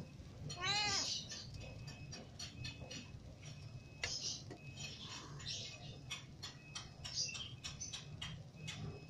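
A young kitten gives one short meow about a second in, followed by faint scattered clicks.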